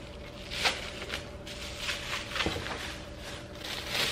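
Clear plastic bag crinkling and rustling in a series of short rustles as it is handled and pulled off a glass pot lid.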